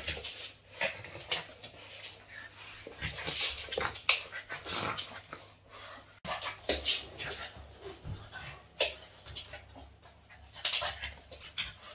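Boston terrier panting hard in quick breathy bursts while playing, with scattered short clicks and scuffs.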